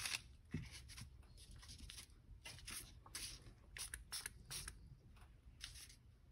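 Faint, short hisses of a trigger spray bottle misting rubbing alcohol onto thin paper, repeated at irregular intervals, with light rustling as a hand smooths the paper near the end.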